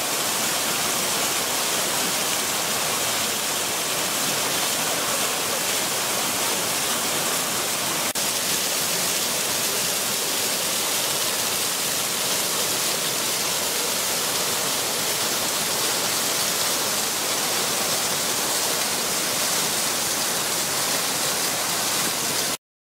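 Rushing water of tall garden fountain jets and their cascades falling into stone basins: a steady, dense hiss that cuts off suddenly near the end.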